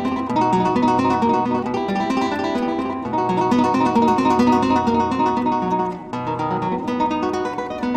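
Background music of plucked acoustic guitar, a run of quick picked notes over a low bass line. There is a brief drop in loudness about six seconds in.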